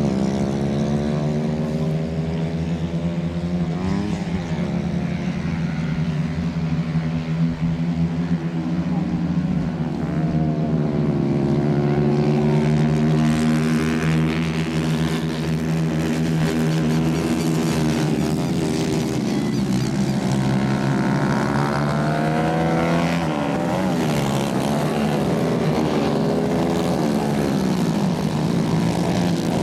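Several 110 cc kart engines running hard as the karts race round a dirt track. Their pitch rises and falls with overlapping revs as they accelerate out of the corner and pass.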